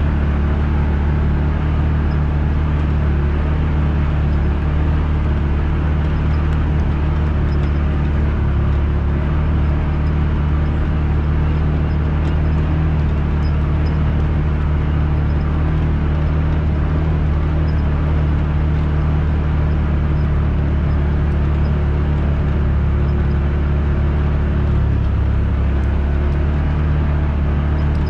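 Side-by-side UTV engine running at a steady cruising speed on a dirt trail, heard from on board: a constant low drone with tyre and trail noise, with no revving or change in pace.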